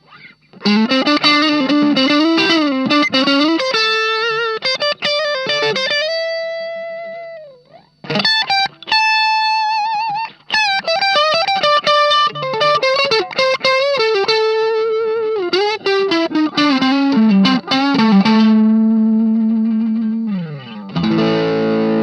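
Electric guitar (Fender Stratocaster) played through an Ibanez Tube Screamer Mini overdrive pedal into a Marshall MG15 amp. It plays a single-note lead phrase with bends and vibrato and long held notes that slide down, then a strummed chord near the end.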